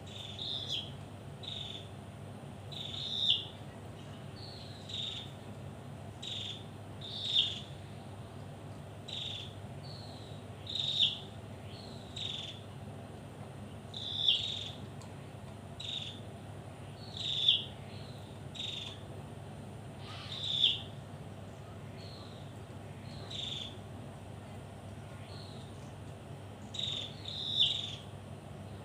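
A bird calling over and over in short, high notes about once a second, with a louder call every three to four seconds.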